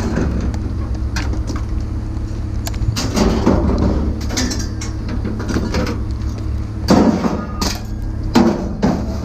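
Several knocks and clatters of objects being handled, loudest about seven and eight and a half seconds in, over a steady low hum of an idling vehicle.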